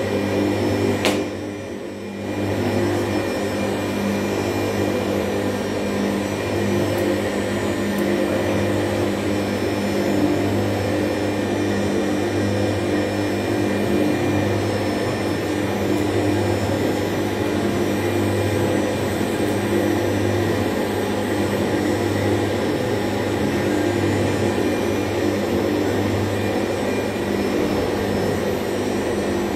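Stephan UMSK 24 universal machine running at full speed, about 3000 rpm, chopping and mixing surimi paste with ice and salt: a loud, steady motor hum and whine. A click about a second in, with a brief dip in level just after.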